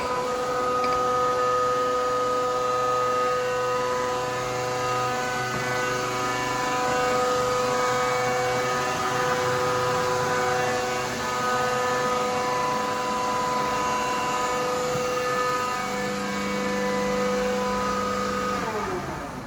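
Binns and Berry Trident L1000 lathe running under power, with a steady whine from its gearing. Near the end the whine falls in pitch and fades as the machine is switched off and runs down.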